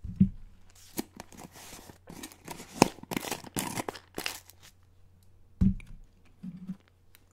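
Close-miked handling of a peanut container: a run of crinkling, tearing rustles as the packaging and lid are worked open, with a dull thump at the start and another about five and a half seconds in.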